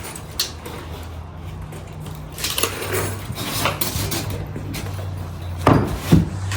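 A handful of sharp metallic clinks and knocks, as of metal parts or tools being handled, with the two loudest near the end, over a steady low hum.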